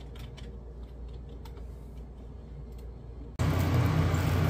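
Faint computer-keyboard typing with scattered clicks over a low steady hum. About three and a half seconds in, a loud steady rushing noise with a deep motor hum cuts in suddenly.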